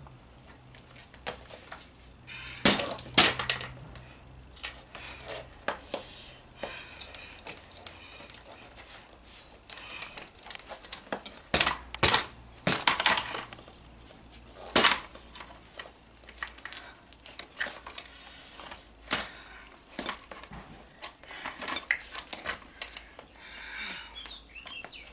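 A 1/5-scale radio-controlled car being smashed and broken apart, its plastic and metal parts giving off irregular knocks, cracks, scrapes and rattling. The loudest cracks come a few seconds in and about halfway through.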